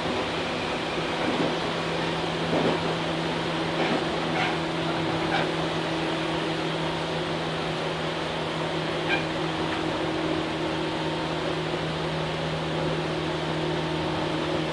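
Tobu 8000 series electric train running, heard from inside the car: a steady drone of motor and gear hum over rolling noise, with a few faint clicks and knocks.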